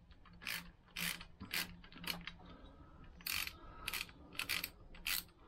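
Socket ratchet clicking in short bursts, about every half second with a pause near the middle, as it is swung back and forth to run down the cylinder head nuts.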